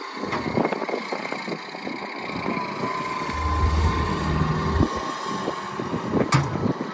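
Kobelco SK200SRLC hydraulic excavator's diesel engine running, with a heavier low rumble for a second or two midway and a faint steady whine over it. A single sharp click near the end.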